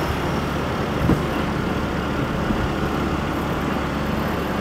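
Motor scooter riding along a rough road: a steady engine hum under road and wind noise, with a brief knock about a second in.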